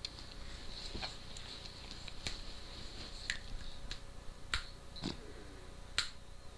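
Sharp, isolated clicks, about eight in six seconds at uneven intervals, over a faint steady hiss.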